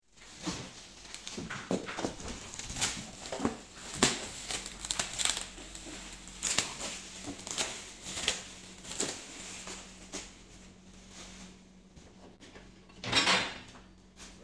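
Plastic wrapping crinkling and cardboard packaging being handled around a boxed kit of steel frame tubes and wooden slats, with irregular rustles and light knocks. A louder rustle comes near the end.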